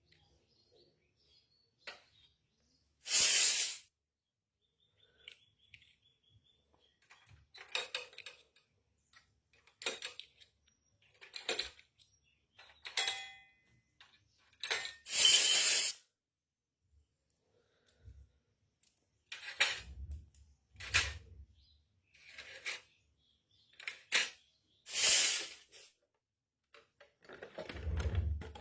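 Miniature toy kitchen pieces being unpacked and handled: scattered taps, clicks and light clinks of tiny steel and plastic pots and utensils, with three louder rustles of packaging about a second each.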